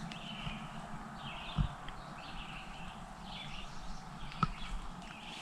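Quiet outdoor evening ambience with faint high chirps repeating about twice a second, from wildlife around the campsite. There is a soft knock about a second and a half in.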